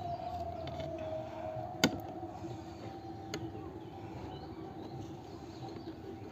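A small bowl set down on a tray gives one sharp clink about two seconds in, then a fainter click about a second and a half later, over a steady faint hum.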